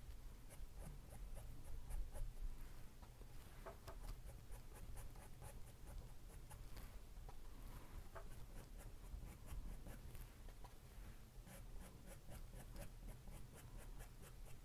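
Paintbrush strokes on a stretched canvas: faint quick dabs and scratchy brushing, several a second, over a low steady hum.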